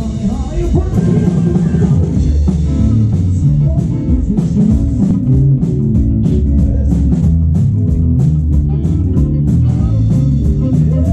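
Live rock music from a band with a keyboard played live, drum kit and a guitar-like part. Through the middle comes a run of quick, even drum hits, about four a second.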